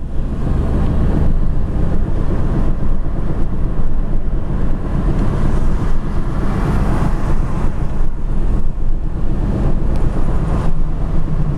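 Steady road noise of a car driving on a highway, heard from inside the cabin: a constant low rumble of engine and tyres.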